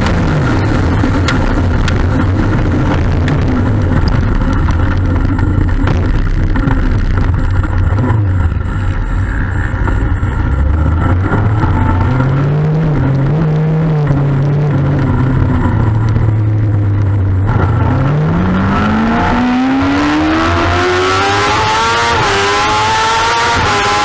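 2007 Kawasaki ZX-6R's inline-four engine, heard from the bike itself: the revs fall right at the start and it runs low and steady for most of the time, then from about three-quarters of the way in it accelerates hard, the pitch climbing steadily with a brief dip at a gear change, while wind noise builds.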